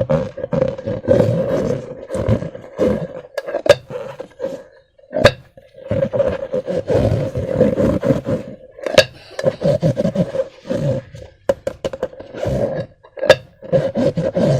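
Slime being squeezed and worked with rubber balloons: rough squishing and rubber rubbing in long stretches, broken by brief pauses, with a few sharp snapping clicks.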